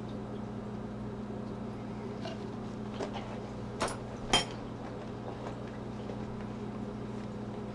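Steady low room hum, with a few light clicks and knocks between about three and four and a half seconds in as objects are handled.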